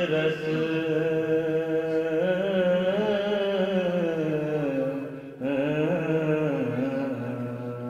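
A man's voice chanting in long, slowly wavering held notes. There is a short break about five seconds in, then the next phrase begins.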